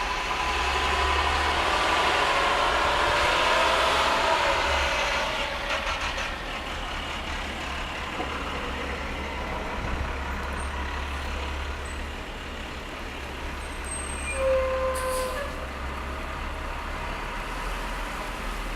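A road vehicle passing, loudest over the first five seconds and then fading, over a constant low rumble of wind on the microphone; a short tone sounds about fourteen seconds in.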